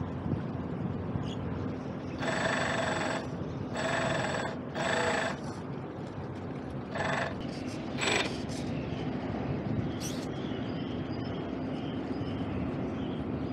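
Small outboard motor of a model boat running steadily, with water washing past the hull. Over it, about two seconds in, comes a run of five short ringing tones, the first three longer and the last two brief, from an unidentified source.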